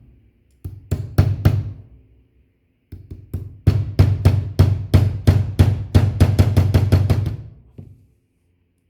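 Small hammer tapping a pin punch to drive the hinge pin out of a Zippo lighter's three-barrel hinge. A few separate taps come first, then a fast run of sharp metallic taps that speeds up before stopping abruptly.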